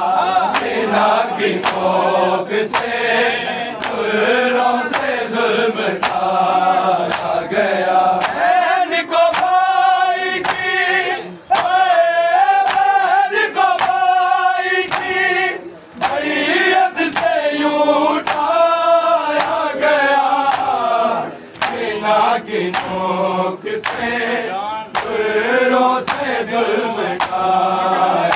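Noha, a Shia lamentation, chanted by voices in chorus to a steady beat of hands striking chests (matam), a little faster than one beat a second.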